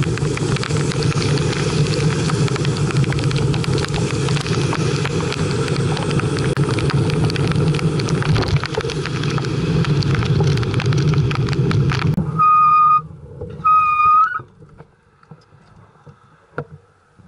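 Heavy rain and wind on the microphone of a camera riding on a bicycle, with tyres hissing on the wet road and drops pattering. It cuts off suddenly about twelve seconds in, followed by two short high beeps about a second apart.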